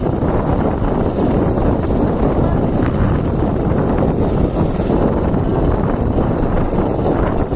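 Loud, steady rush of wind buffeting the microphone, mixed with road traffic noise as motorcycles and a scooter pass close by.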